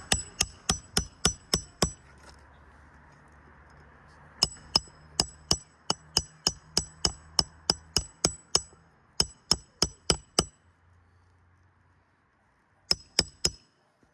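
Hand hammer driving new roofing nails into shingles: runs of quick, ringing strikes, about three a second, in four bursts separated by short pauses, the last burst only three strikes near the end.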